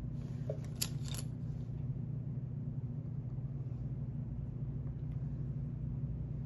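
Steady low room hum, with a few faint clicks about a second in as a popsicle stick and a plastic glue bottle are picked up off a wooden table.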